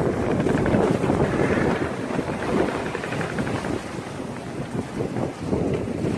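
Wind buffeting the microphone in uneven gusts over the rush of sea water along the hull of a sailing yacht under way.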